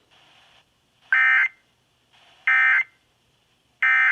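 NOAA Weather Radio SAME end-of-message signal: three short, identical bursts of digital data tones about 1.4 seconds apart, marking the end of a warning broadcast.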